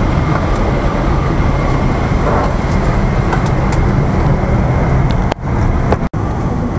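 Steady airliner cabin noise, a loud low rumble with hiss from the aircraft's ventilation and engines. It cuts out briefly twice near the end.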